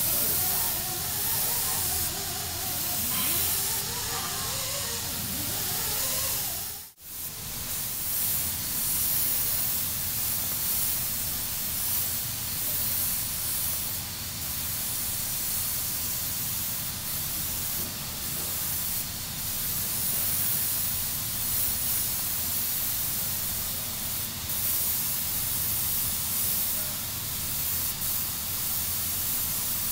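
Airbrush hissing steadily as compressed air sprays paint, its level rising and falling a little; the sound drops out abruptly for a moment about seven seconds in.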